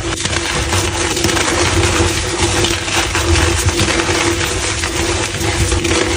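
Blocks of gym chalk being crushed and crumbled: a dense, continuous crunching crackle of many small breaks, over a steady low hum.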